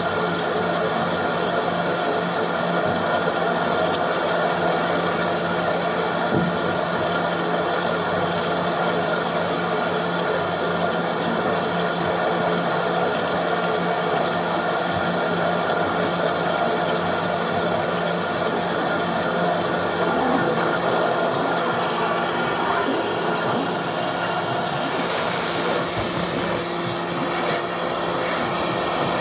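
High-pressure drain jetter running steadily, its pump driving water through a jetting hose inside a washing-machine drain pipe, with a hiss of spraying water; the sound shifts slightly near the end.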